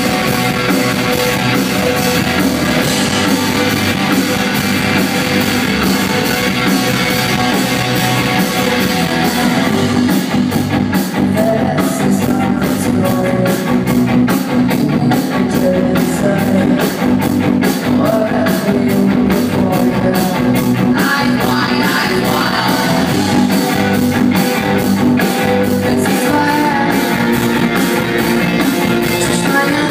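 Rock band playing live: electric guitars, bass and a drum kit. From about ten seconds in the drums drive a steady, regular beat.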